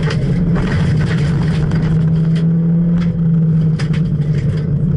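Ford Fiesta R1 rally car's engine running hard at steady high revs, heard from inside the cabin on a gravel stage. Gravel ticks and pings against the car's underside a few times.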